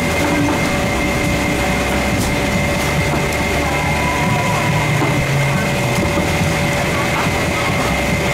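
Steady mechanical drone with a constant high whine and a lower hum over a low rumble, from a machine running without change.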